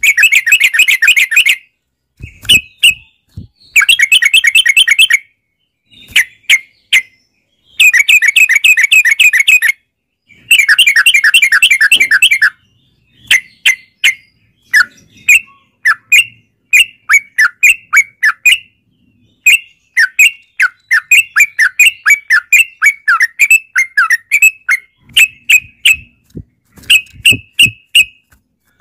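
Yellow-vented bulbul (trucukan) song: loud, rapid, bubbly chattering phrases in bouts of one to two seconds, turning about halfway through into a long run of quick, separate short chirps.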